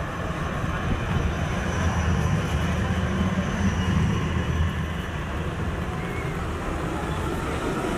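Electric street trams running on track: a low rumble of steel wheels on rail that swells over the first few seconds and then eases, with a faint high whine above it.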